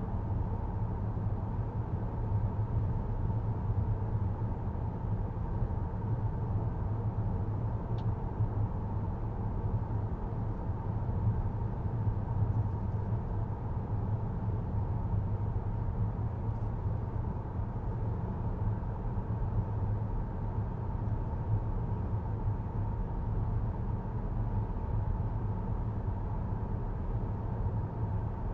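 Road and tyre noise heard inside the cabin of a 2023 Volvo XC90 while driving: a steady, low rumble that stays even throughout.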